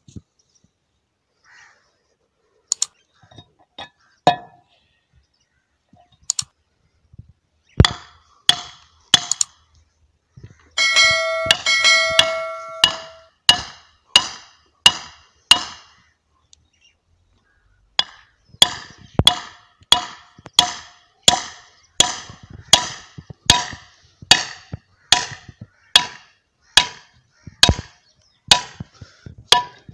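Hammer blows on steel parts of a diesel engine's flywheel assembly, each a sharp metallic clang with a short ring. A few scattered strikes come first, then a longer ringing clatter about a third of the way in. From about the middle the hammering settles into a steady run of strikes, nearly two a second.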